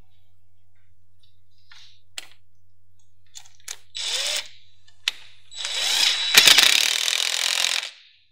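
DeWalt 20V cordless driver with a socket, tightening a stainless steel T-bolt hose clamp on a silicone intake coupler. It gives a few short spins, then runs for about two seconds near the end.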